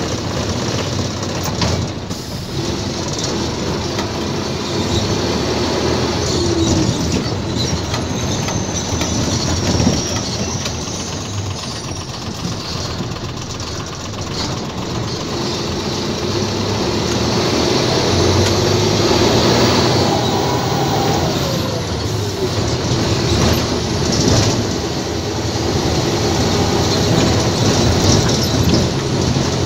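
Inside the cab of a loaded Isuzu tractor-trailer truck on the move: the diesel engine running, with steady road and cab noise.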